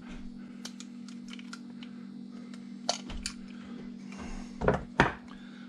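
Small clicks and light knocks of garden hose nozzle parts being handled and set down during disassembly, with two louder knocks near the end, over a steady low hum.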